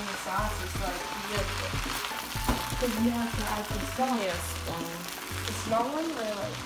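Shrimp fried rice sizzling in a nonstick wok while a spatula stirs and turns it, over background music with a repeating bass line and a melody.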